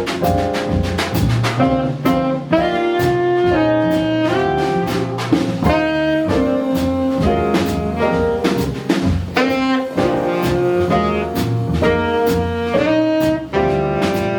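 Live jazz combo: a saxophone plays a melody in held notes over piano, walking bass and drums with steady cymbal strokes.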